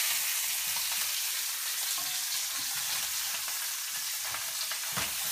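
Salmon fillets sizzling steadily in hot oil and butter in a skillet, freshly flipped onto their seared side. A few light taps and scrapes of a spatula against the pan, near the start and about five seconds in.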